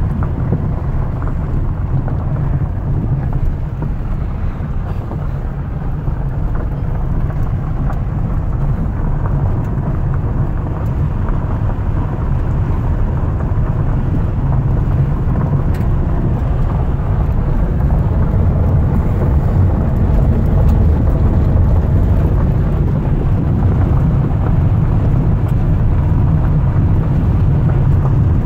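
Steady low rumble of a car on the move, road and wind noise heard from inside the cabin, growing a little louder in the second half.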